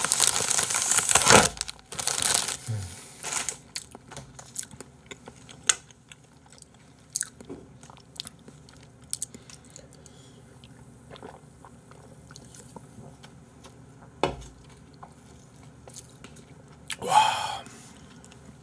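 Close-miked chewing of a mouthful of food, loud for the first three seconds, then quieter with scattered small mouth clicks and smacks, a sharp click about 14 seconds in and a short loud burst of noise near the end.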